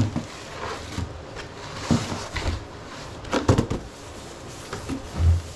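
Unboxing handling noise from the cardboard-boxed indoor unit of a mini-split: a run of irregular knocks and clatters with some rustling, and a heavier low thump near the end.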